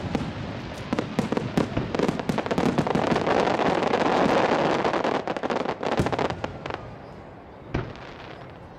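Fireworks display: a rapid barrage of shell bursts with dense crackling, building to its thickest about four seconds in, then thinning out after about six and a half seconds to one last single bang near the end.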